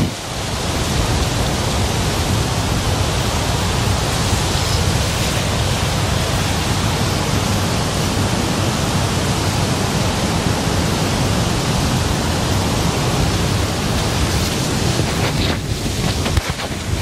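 Strong wind buffeting the microphone and blowing through the trees: a steady, loud rushing noise that eases briefly near the end.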